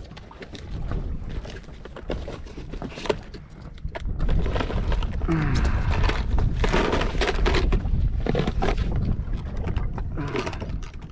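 Plastic tackle boxes being pulled out of a bag and handled, with repeated clicks and clattering, over a low rumble of wind on the microphone that grows louder about four seconds in.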